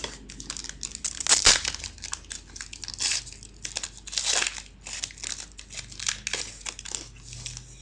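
Trading-card pack wrapper being torn open and crinkled by hand, a run of irregular crackles with the loudest tear about a second and a half in and further bursts about three and four and a half seconds in.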